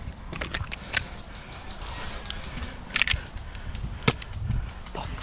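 Scattered sharp snaps of airsoft guns firing, with crunching and rustling of movement between them. The loudest snaps come in a quick cluster about three seconds in and singly about a second later.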